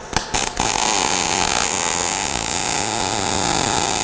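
MIG welding arc from an ESAB Rebel 235 in sMIG mode, laying an uphill fill pass in a groove at 230 inches per minute wire feed. A few sharp cracks as the arc strikes, then a steady, even crackling hiss from about half a second in.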